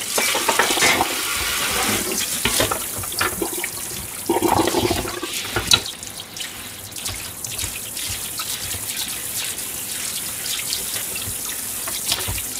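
Kitchen tap running into a stainless-steel sink during washing-up, with a plastic cutting board being scrubbed with a sponge under the stream. Crockery and the board knock and clatter several times in the first half; after that the running water is steadier.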